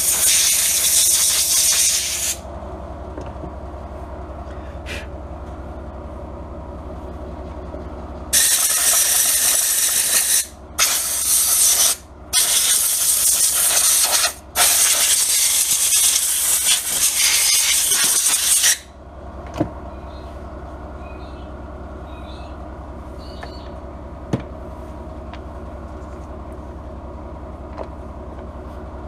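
Compressed-air blow gun blasting air in loud hissing bursts to blow dust out of the generator's air-cleaner foam: one short blast at the start, then a long run of blasts from about a third of the way in to about two-thirds, broken by brief pauses. A steady low hum runs underneath throughout.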